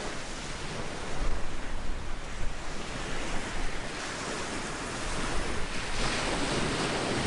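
Surf washing on a sandy beach, with wind rumbling on the microphone. The hiss grows a little louder near the end.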